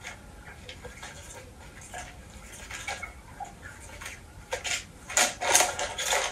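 Battery-powered spinning cat toy running, its wand turning under the fabric cover with irregular clicks and rattles that grow into a louder burst of clattering near the end.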